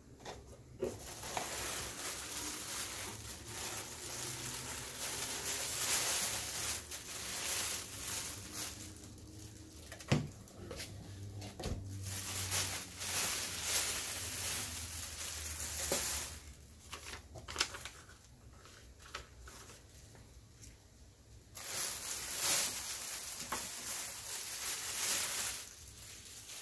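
Thin plastic bag rustling and crinkling as it is worked off a wooden pendulum wall clock in its cardboard box, in two long spells, with a couple of sharp knocks around the middle.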